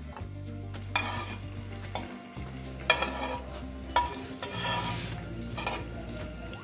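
Cut burger bun halves toasting face-down on a hot flat metal pan, sizzling, as a metal spatula scrapes and presses on them in several short bursts.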